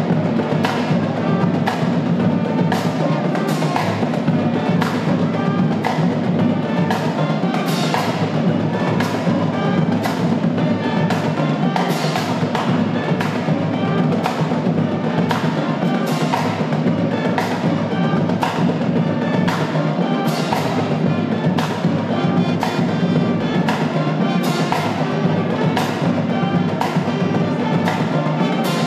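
High school marching band drumline playing a driving percussion groove of snares, quads and bass drums, with sharp hits about twice a second.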